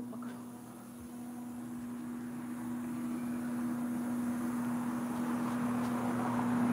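Countertop air fryer running, its fan making a steady hum that gets louder toward the end.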